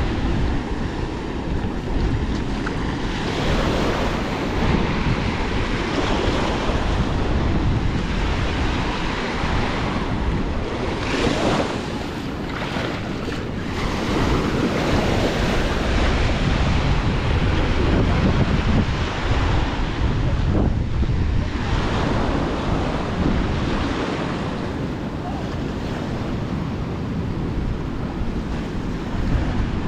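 Small waves washing up on a sandy beach, with wind blowing across the microphone as a steady low rumble. A wave surges in more loudly about halfway through.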